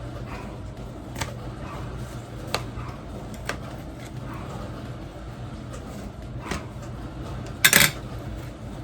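Light clicks and taps from handling food and containers, then one short loud rustling burst near the end, over a steady low hum.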